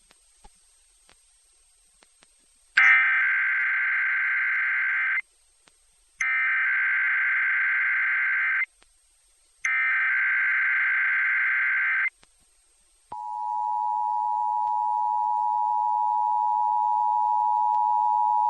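Emergency Alert System test tones: three harsh warbling data bursts of the EAS/SAME header, each about two and a half seconds long with a second's gap between them, starting about three seconds in. Then, from about thirteen seconds in, the steady two-tone EAS attention signal (853 and 960 Hz).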